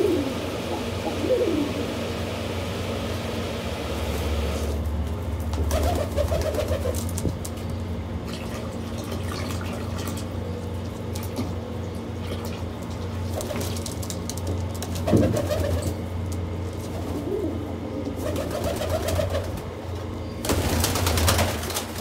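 Domestic pigeons cooing again and again over a steady low hum. Near the end comes a short burst of wing flapping as a bird flies up.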